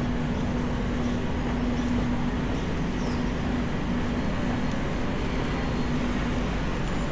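Steady road-vehicle rumble with a constant low hum.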